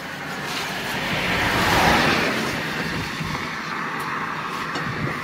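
A vehicle passing on the road, its noise swelling to a peak about two seconds in and then fading.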